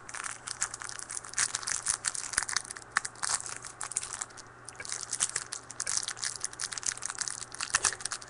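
Trading-card pack wrapper being crinkled and torn open by hand: a dense run of small crackles.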